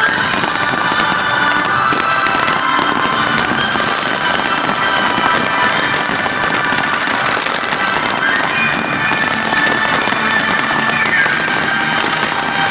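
A fireworks display: dense, continuous crackling and popping with no pauses, with music and its sustained tones running underneath.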